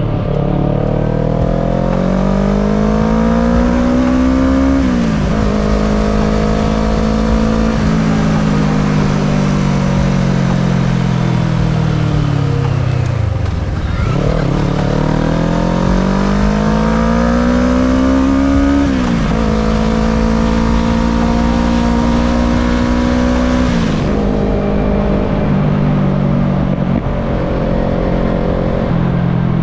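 Kawasaki ER-6n's 649 cc parallel-twin engine under way. It revs up and shifts up about five seconds in, then its pitch slowly falls away to a low point. It revs up again, shifts up just before twenty seconds in, and steps down again near twenty-four seconds.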